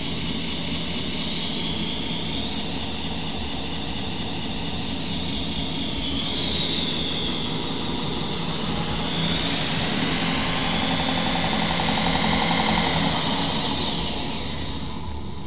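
Variable-speed belt grinder running with no load, a steady motor and belt whine that wavers in pitch and swells slightly, then winds down near the end.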